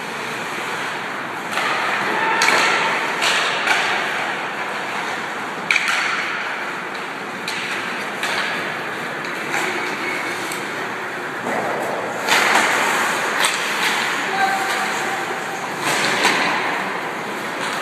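Ice hockey play in an indoor rink: skates scraping the ice under a steady wash of noise, with sharp stick-and-puck clacks and knocks every second or two, and players calling out. The rink's echo carries it all.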